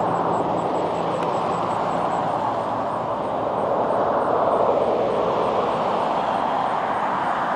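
Road traffic noise from trucks and cars approaching on a two-lane road: a steady rush of engines and tyres that dips slightly and swells again. No horn sounds.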